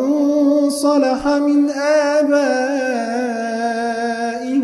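Quran recitation in Arabic by a male reciter: one long, drawn-out melodic phrase with a wavering, ornamented pitch, chanted without a break.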